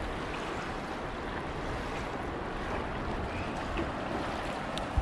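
Steady rushing of river water below a dam, mixed with wind noise on the microphone, with one sharp click near the end.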